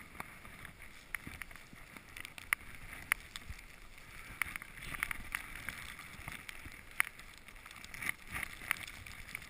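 Steady hiss of sliding through snow on a downhill tree run, dotted with scattered sharp clicks and knocks.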